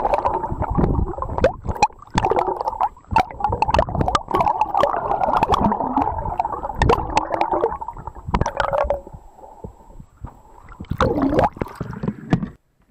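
Water rushing and bubbling, heard through an action camera held underwater on a landing net as it is moved through the water, with many sharp knocks and clicks. It eases off, comes back briefly, then cuts off suddenly near the end as the camera leaves the water.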